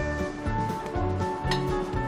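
Background music: an instrumental tune with a bass line moving in short, regular notes.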